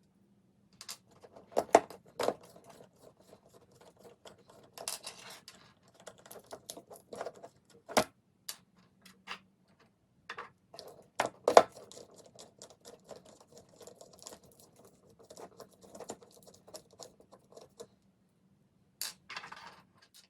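Hand tools and small parts clicking and tapping against a beetleweight combat robot's frame as it is taken apart, irregular light clicks with a few louder knocks.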